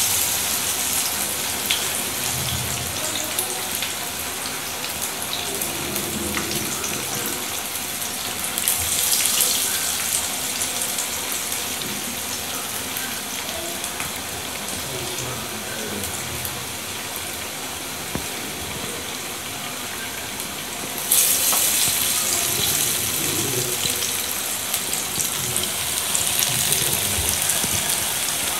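Masala vadai (chana dal fritters) deep-frying in hot oil in a pan, a steady sizzling hiss. The sizzle surges suddenly louder twice, about eight and a half seconds in and again about twenty-one seconds in, as fresh patties go into the oil.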